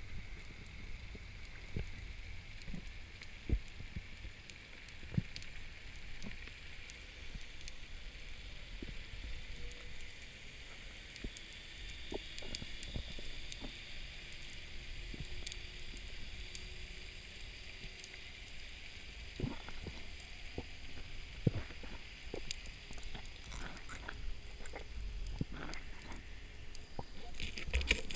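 Underwater ambience heard through a diving camera: a steady low rumble with a faint high hum and scattered sharp clicks, which come more often in the last few seconds.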